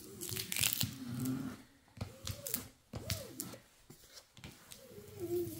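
Plastic scraper rubbing and swishing in repeated strokes over the clear plastic film on a diamond painting canvas, pressing out air bubbles. A few short low wavering tones sound between the strokes.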